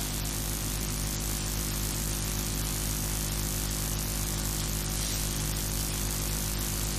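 Steady electrical buzzing hum with hiss, unchanging, from an amplified sound system while no one is reciting.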